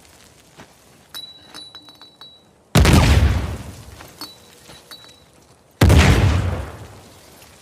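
Pipe bomb explosion sound effect: two sharp, deep blasts about three seconds apart, each dying away over about a second. Between them come scattered small clinks and tinkles, like glass or debris.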